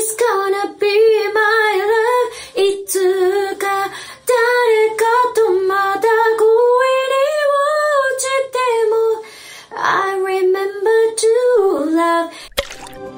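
A woman's voice singing unaccompanied: a slow melody with long held notes that waver with vibrato, breaking off near the end.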